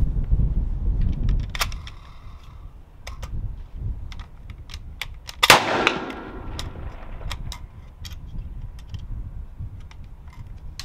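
A single suppressed rifle shot from a 6.5 Creedmoor bolt-action rifle about halfway through, followed by a scatter of short clicks. Low rumble fills the first two seconds.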